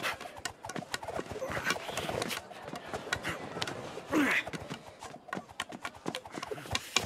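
A spear being twirled fast, with swishes and many irregular sharp knocks and clicks, over scattered shouts from the spectators.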